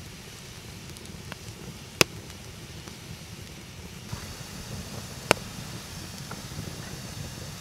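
Wood campfire burning with a steady low rush and scattered crackles, two of them sharp, loud pops about two seconds and about five seconds in.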